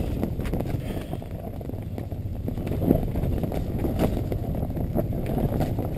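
Low steady rumble of wind buffeting a fabric ice-fishing shack, with a few faint knocks and rustles.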